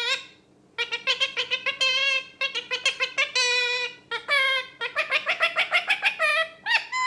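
Pet parrot vocalizing: quick runs of short, high pitched chattering syllables, starting just under a second in after a brief pause.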